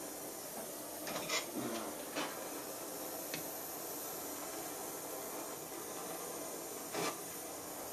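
Small gas blowtorch flame hissing steadily as it heats a model boiler's end cap to sweat the soft-soldered joint, with a few light clicks and taps, the clearest about a second in and near the end.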